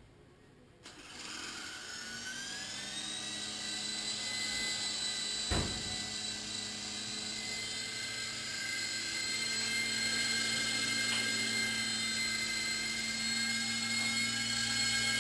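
Small iPhone-controlled electric toy helicopter spinning up about a second in: a motor whine that rises in pitch, then runs steady and high-pitched with the rotor hum, slowly getting louder. A single sharp knock about five and a half seconds in.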